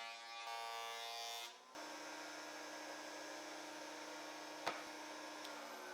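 Faint, steady hum of a power tool's electric motor, changing abruptly about two seconds in, with a single click later and the pitch sinking near the end as the motor winds down.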